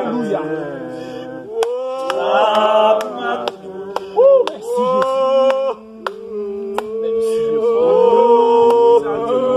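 A small group singing unaccompanied in worship, several voices with long held notes, and a few sharp clicks scattered through.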